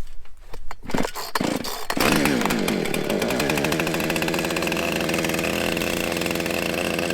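Chainsaw being started: two short bursts as the starter cord is pulled, then the engine catches about two seconds in, its pitch falling and levelling off into steady running.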